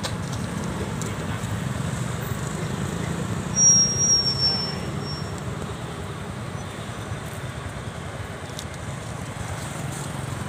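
Steady low outdoor rumble of distant road traffic by a roadside, with a short high-pitched squeal about three and a half seconds in.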